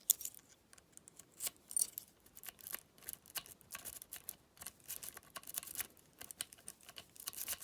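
Cross-lock jigglers clicking and rattling metal on metal inside a cross lock as they are jiggled and raked, many irregular small ticks a second. The lock does not open.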